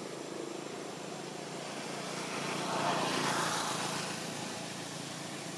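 Outdoor traffic background with a vehicle passing by, swelling to its loudest about three seconds in and then fading away.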